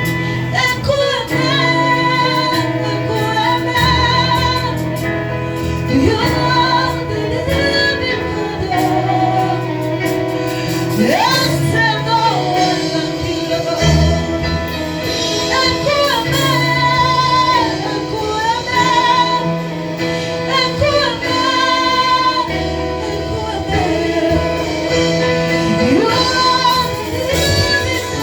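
Gospel worship music: a female lead voice sings with vibrato, backed by other singers and instruments holding steady bass notes.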